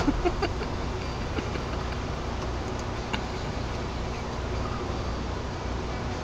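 Steady office room noise picked up by a webcam microphone, with a few faint scattered clicks.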